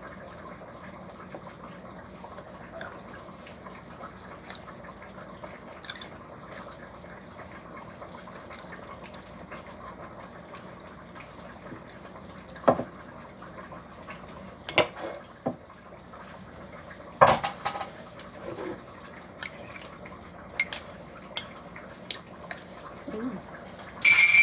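Metal spoon clicking against a ceramic bowl now and then during a meal, over a steady low kitchen background. Near the end comes a louder ringing clatter of tableware as the dish is handled at the sink.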